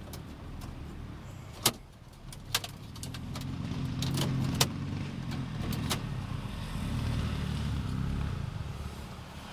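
Dirt bike engines running in the distance, a low drone that swells from about three seconds in and eases off near the end, with a few sharp plastic clicks and knocks from dash parts being handled.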